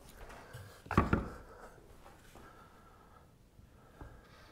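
A single sharp knock about a second in, of wood set down on a wooden workbench, then quiet shop room tone with a faint tap near the end.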